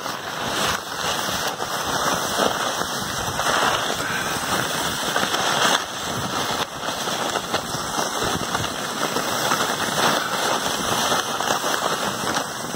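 Continuous scraping hiss and crackle of a person butt sliding down a packed snow trail, snowshoes skidding and scuffing over the snow.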